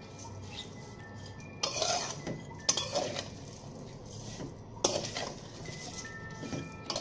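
Metal stirring utensil clanking and scraping against a karai (wok) as semai vermicelli is stirred while frying in ghee, with about five sharp knocks at irregular intervals.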